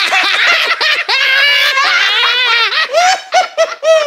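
Several cartoon voices laughing hard together, overlapping, breaking into short separate bursts of laughter near the end.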